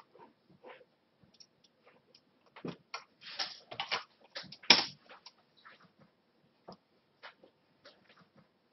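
Computer mouse clicks and keyboard keystrokes: scattered single clicks, a quick run of keystrokes about three seconds in, and the loudest click just before five seconds in, followed by sparse light ticks.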